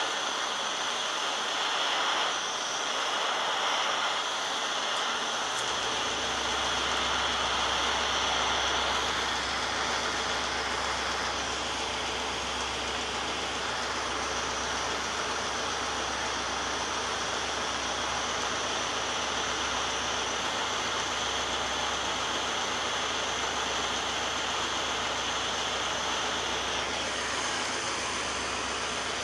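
Torch flame hissing steadily as it heats a cracked brass radiator neck for soldering; a low rumble joins in about six seconds in.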